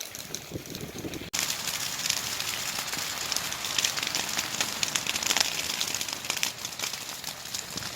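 Dry grassland burning in a controlled field burn: a dense crackling and popping of burning grass over a hiss. It becomes abruptly louder about a second in and stays that way.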